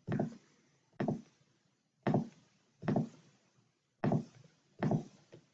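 Keys on a computer keyboard pressed one at a time. Each press is a short, dull knock, about one a second.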